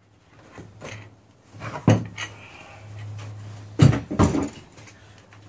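Wooden pieces and tools being handled and set down on a table saw top: a few sharp knocks and clunks, two of them close together near the end, with a short low hum between.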